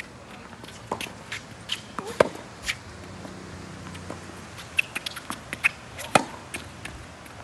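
Tennis balls being struck by rackets and bouncing on the court: a string of sharp pops and knocks, loudest about two seconds in and again about six seconds in.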